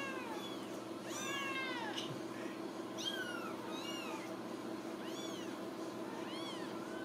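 Young Ragdoll kittens mewing: short, high-pitched mews that rise and fall, one about every second, some overlapping, over a steady low hum.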